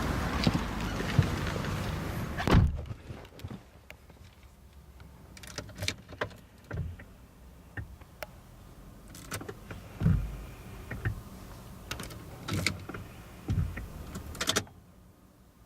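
Irregular clicks and knocks inside the cabin of a 17-series Toyota Crown, the abnormal noise from the air-conditioning mode-switching motor that the owner says is common on older cars. A thump about two and a half seconds in cuts off the louder outside noise, and the background drops again suddenly near the end.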